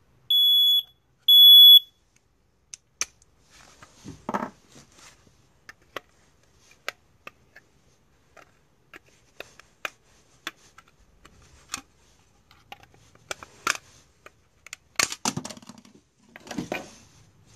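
Piezo siren of a smoke detector sounding two short, loud, high-pitched beeps as its test button is pressed, confirming the alarm works. After that, scattered plastic clicks and rustling as detector housings are handled and opened.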